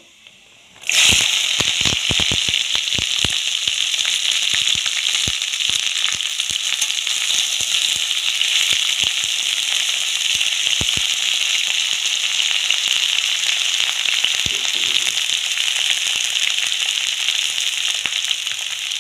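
Chopped taro stolons dropped into hot mustard oil in a kadai: a loud sizzle starts suddenly about a second in, crackling and popping hard for the first couple of seconds, then settles into steady frying with occasional pops.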